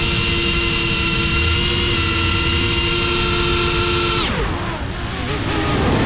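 GEPRC Cinelog 35 FPV cinewhoop's brushless motors and propellers whining at a steady pitch. About four seconds in the throttle is chopped for a dive: the whine drops sharply and the sound quietens. Near the end the pitch climbs again as the throttle comes back up.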